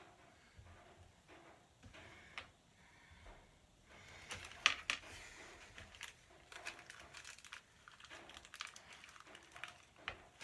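Faint, irregular clicks and light rustling of small parts and tools being handled, with a louder clatter about four to five seconds in.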